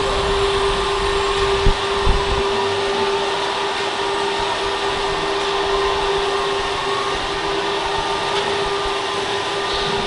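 Hydraulic pump of a radio-controlled Liebherr 956 model crawler excavator running with a steady electric whine and a constant hum, with two short knocks about two seconds in.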